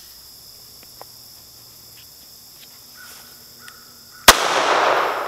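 A single shot from a SIG Mosquito .22 LR pistol about four seconds in, a sharp crack followed by about a second of echo off the surrounding trees.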